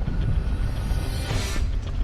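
Background music building up, with a swelling sweep about a second and a half in.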